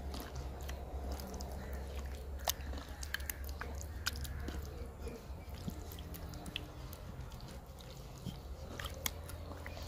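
Hand mixing pieces of fish in a wet yoghurt-and-lemon spice marinade in a clay bowl: soft wet squelches and scattered sharp clicks, over a steady low hum.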